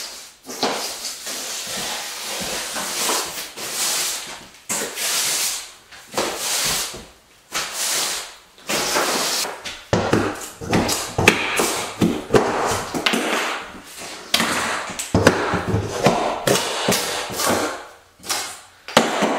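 Wall paneling and trim being pried and torn off with a pry bar: rasping, cracking bursts of scraping and splitting, then, from about halfway, many sharp knocks and snaps as the strips come loose.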